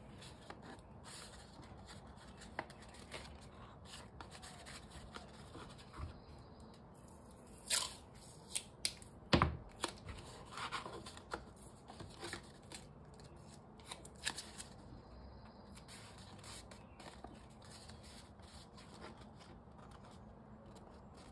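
Paper and masking tape being handled: scattered soft rustles, taps and crinkles of folded paper, with a cluster of sharper clicks and tearing sounds from the tape roll about eight to ten seconds in.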